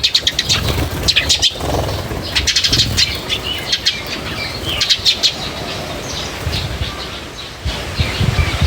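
Small birds chirping in quick clusters of high, sharp notes, with low uneven thumps underneath.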